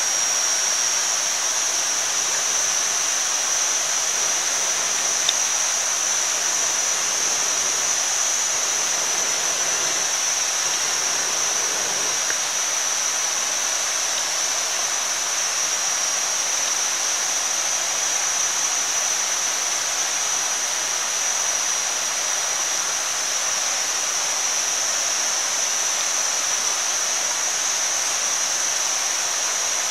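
Meat and pork fat sizzling on a fire-heated stone: a steady hiss with a small pop about five seconds in.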